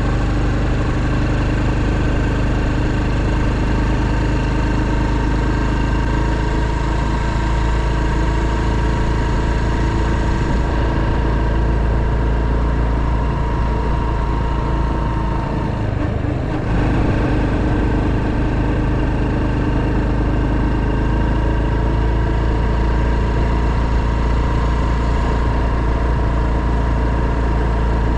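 Honda Super Cub 110's single-cylinder four-stroke engine running steadily under way, with a brief dip and change in its note about halfway through.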